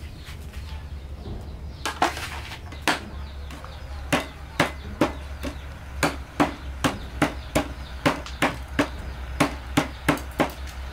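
Wooden pestle pounding chilies on a wooden cutting board: a couple of separate knocks, then from about four seconds in a steady run of about three sharp knocks a second.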